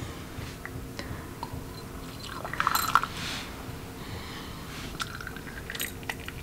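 Light clicks and clinks of tableware being handled, with a short louder clatter about two and a half seconds in and a few more taps near the end.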